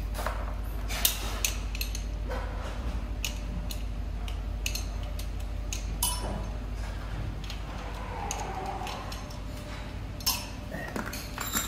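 Irregular metallic clinks and taps of hand tools and parts on a Subaru EJ20 turbo engine as it is taken apart on an engine stand, over a steady low hum.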